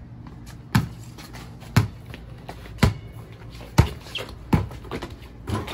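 A basketball being dribbled on brick pavers, six sharp bounces about a second apart.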